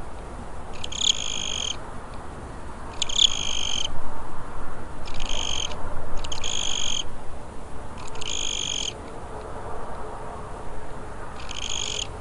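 Cricket chirping in six short, high trills spaced one to two seconds apart, over a steady background hiss.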